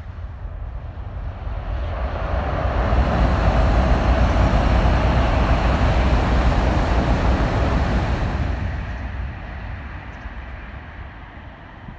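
A Shinkansen bullet train running over a long steel truss bridge: a rushing roar that builds over the first few seconds, holds loud for about five seconds, then fades away, with a low rumble underneath throughout.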